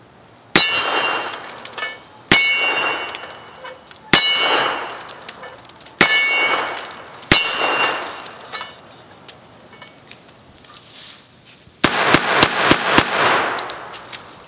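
CMMG Guard 45 ACP semi-automatic carbine firing at a steel plate target. Five single shots come a second and a half to two seconds apart, each followed by the plate ringing. About twelve seconds in, a rapid string of about six shots follows.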